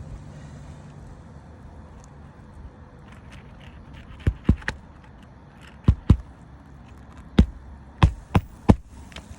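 Footsteps on a shingled roof: about nine sharp knocks in irregular clusters, starting about four seconds in.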